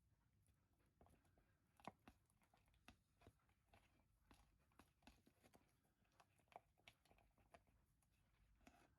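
Near silence with faint, irregular clicks and crackles, two or three a second, from about a second in until near the end.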